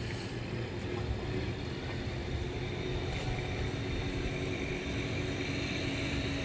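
Steady low rumbling outdoor background noise, heaviest in the bass, with a faint hum.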